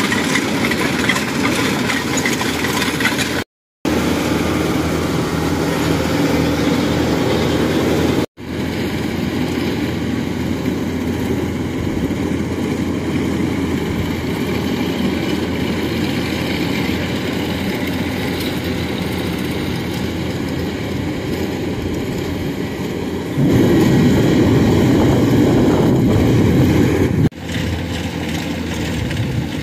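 Diesel engine and threshing machinery of a rice combine harvester running steadily, with the engine of a tracked farm cart alongside. The sound cuts out briefly twice early on and grows louder for about four seconds near the end.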